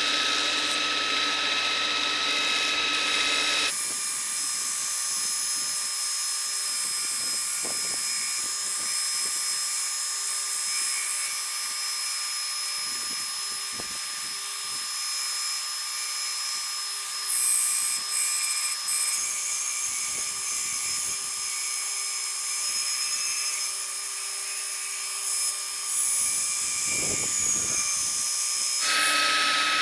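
Belt grinder running with a steady whine while a forged steel knife blade is ground on the belt, giving a continuous grinding hiss.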